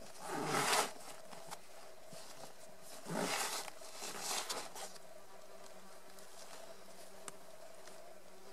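Fabric of a backpack rustling in three short bursts as it is pulled shut around a carcass, with a small tick later on.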